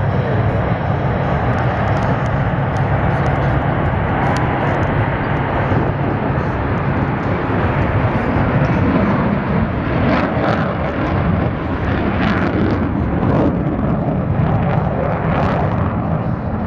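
Jet engines of Thunderbirds F-16 Fighting Falcons at takeoff power: a loud, continuous rumble of several jets climbing away, growing rougher and gustier in the second half.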